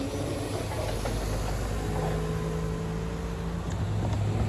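Road traffic moving over the level crossing once the gates are up: a car engine running, growing louder near the end as an SUV drives over the tracks.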